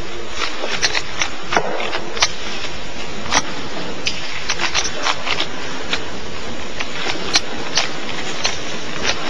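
Rubik's Cube being turned fast in a speed solve: irregular sharp clicks, several a second, over a steady hiss of hall noise.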